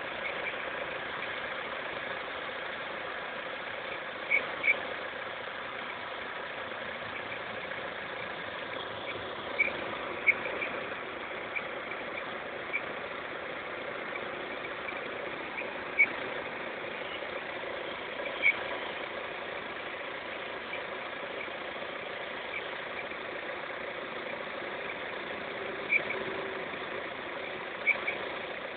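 Opel X20XEV 2.0-litre 16-valve four-cylinder engine idling steadily, with a few brief sharp clicks at irregular intervals.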